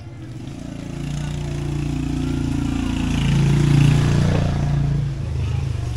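A motor vehicle's engine passing close by with a steady low hum, growing louder to a peak about four seconds in, then fading.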